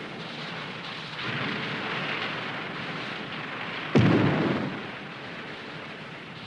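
A sudden loud boom about four seconds in, dying away in a low rumble over about a second, over a steady hiss.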